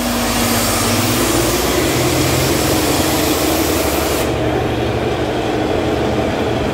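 Narrow-gauge diesel locomotive engine running steadily as the locomotive moves slowly along the track: a low engine hum under a broad hiss.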